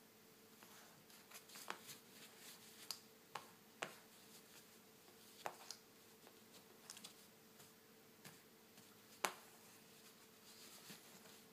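Faint, scattered clicks and light taps of fingers and a paper towel dabbing along the edges of a wet film screen protector on an iPad, to blot off the spray solution. The sharpest tap comes about nine seconds in.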